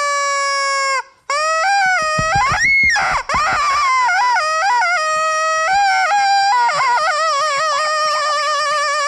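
Yellow rubber chicken toys being squeezed, their reed whistles letting out long honking squawks that jump up in pitch as the grip tightens. There is a short break about a second in. From about two and a half seconds in, two or more chickens squawk at once and overlap.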